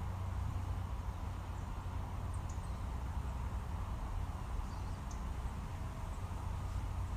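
Steady low outdoor rumble, with a few faint, brief bird chirps scattered through it.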